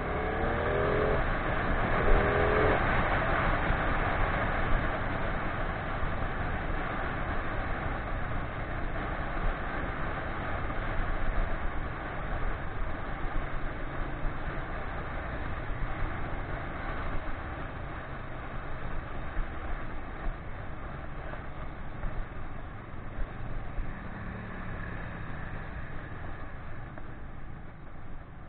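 Motorcycle riding at speed, heard from a camera mounted on the bike: steady wind and road rush over the low drone of the engine. A couple of short rising pitched tones sound about one to three seconds in.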